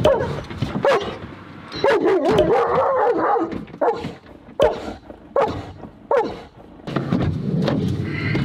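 German Shepherd left alone in the car, vocalizing: long, wavering cries, then four short barks about a second apart, in the closed car cabin.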